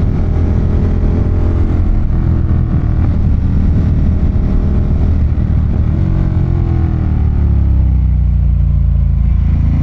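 Ducati Monster 1200's L-twin engine running under way, loud and steady; over the last few seconds its pitch falls steadily as the revs drop and the bike slows.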